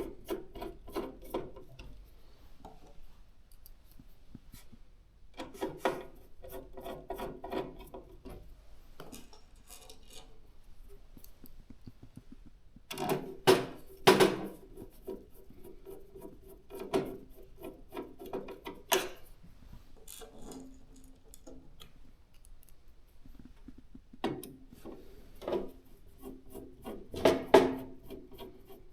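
PC parts being handled during assembly: clusters of sharp clicks, taps and rubbing of plastic and metal components, with the loudest knocks about halfway through and again near the end.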